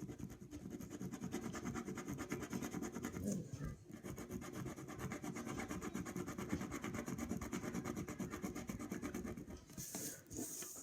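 Colouring in on paper: a pencil or pen scratching back and forth in fast, even strokes, with a brief pause about four seconds in.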